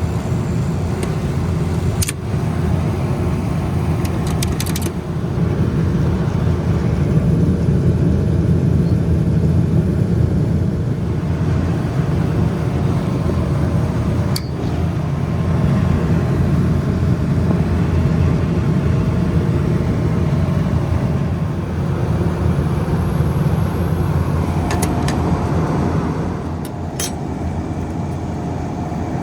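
Steady low drone of running refrigeration machinery, with a few sharp clicks and taps from hand tools during a contactor swap.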